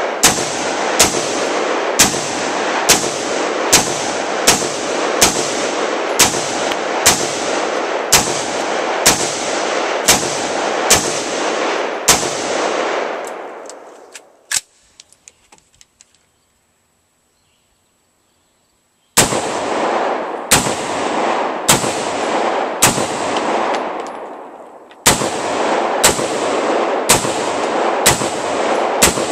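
Adcor Bear Elite 10.5-inch short-barrel AR-15 with a piston system, firing 5.56 rounds in steady semi-automatic shots about one a second, each ringing out sharply. The firing stops for about five seconds near the middle, then resumes at the same pace.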